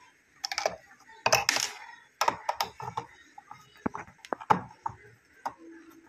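Screwdriver and hard plastic parts clicking, knocking and scraping at irregular intervals while the screws holding a washing machine's water inlet valve are taken out, with a short scraping rustle about a second and a half in.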